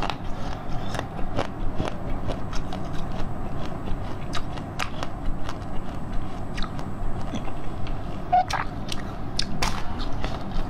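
Close-miked biting and chewing of a pink cheese-shaped jelly block, with irregular sharp, crackly clicks of the mouth and food throughout.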